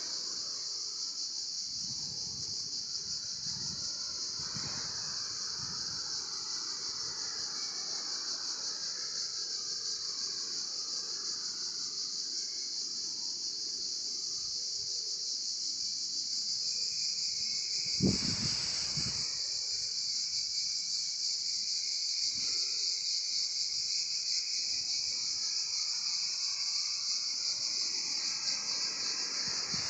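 Steady, high-pitched buzz of an insect chorus, with wind rustling leaves underneath. A short thump stands out about eighteen seconds in.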